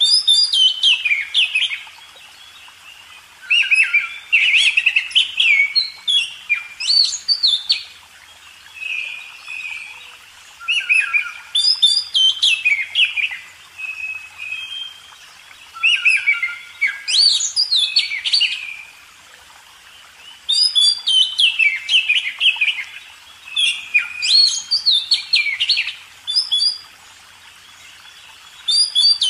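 Bird song: phrases of quick, sweeping notes, each lasting a couple of seconds, repeated every few seconds.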